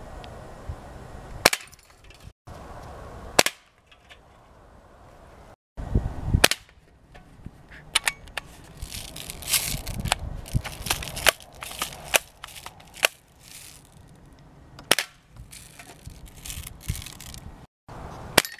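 Several sharp gunshots from a small gun, spaced a few seconds apart, fired at cans and glass bottles.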